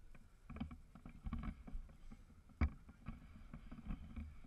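Low, uneven rumble of a tour catamaran under way, with wind buffeting the camera's microphone and a single sharp knock about two and a half seconds in.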